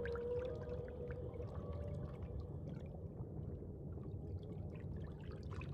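Underwater ambience: a steady, muffled low rumble with small scattered bubbling pops, and a faint held tone that fades out within the first two seconds.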